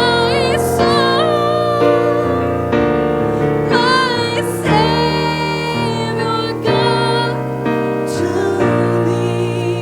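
Gospel song: a solo voice singing held, wavering notes with vibrato over keyboard chords.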